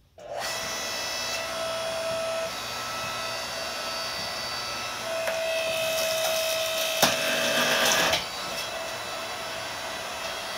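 Yardworks 6.5-ton electric hydraulic log splitter running under load as its ram pushes electric motor stators against the wedge. It makes a steady whine, with a higher steady tone that comes in near the start and again in the middle, and it grows louder toward the end of the push. A single sharp crack about seven seconds in, as the stator steel is forced against the wedge.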